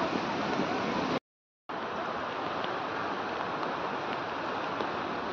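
Steady rushing outdoor noise that breaks off into silence for about half a second a little over a second in, then resumes.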